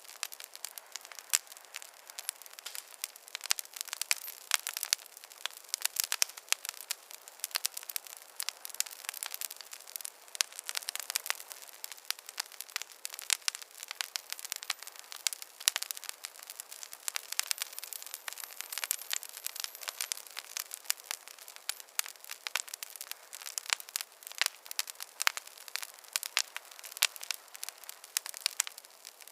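Wood fire crackling: a steady stream of irregular small snaps and pops, thin, with no low rumble.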